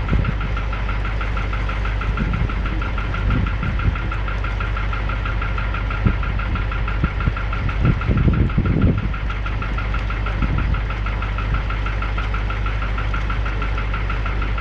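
Car engine idling steadily, with a fast, even pulsing through the sound and a few brief low bumps around the middle.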